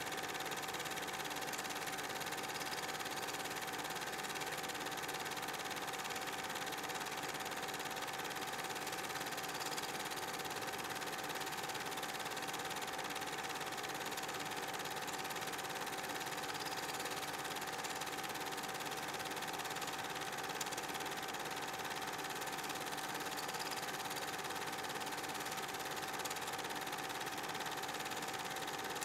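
A steady mechanical whir with a constant pitched hum, holding the same level without a break.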